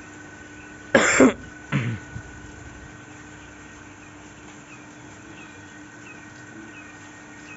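A person coughs about a second in: one harsh cough, then a shorter second one, over a steady low hum.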